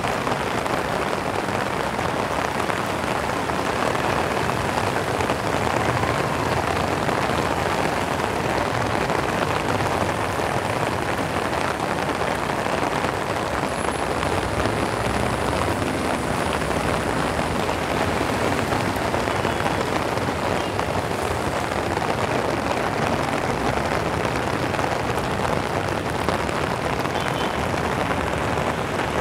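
Heavy rain pouring steadily onto a paved road, with vehicles driving past through the water on it.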